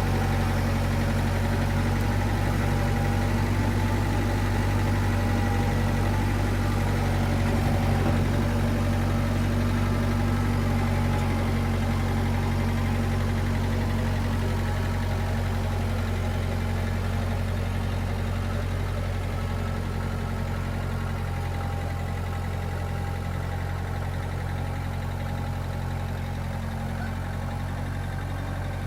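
Engine running steadily at an even speed, fading slightly toward the end.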